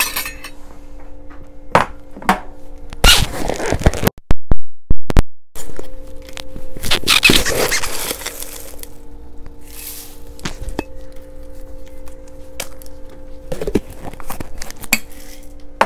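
Kitchen handling sounds: clinks, thunks and two loud rattling bursts as a pantry can of freeze-dried black beans is opened, and the beans are scooped with a metal measuring cup and tipped into a cast-iron skillet. A steady low hum runs underneath, and the sound cuts out briefly about four seconds in.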